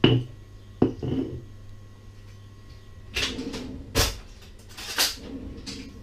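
Stone pestle knocking against a stone molcajete, a few sharp clacks with short scraping sounds in between.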